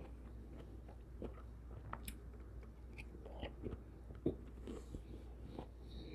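Close-miked chewing and biting of soft cantaloupe chunks: small wet mouth clicks and smacks, with one sharper click about four seconds in.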